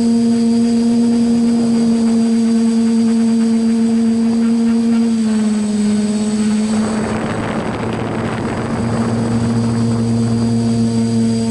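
Small UAV's electric motors and propellers whining steadily, as heard from the onboard camera. The hum dips slightly in pitch about five seconds in, and a rush of wind-like noise swells for a couple of seconds past the middle.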